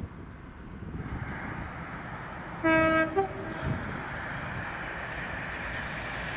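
Approaching train sounding its horn about three seconds in: a loud low note for about half a second, then a short higher note. The rumble of the train builds underneath.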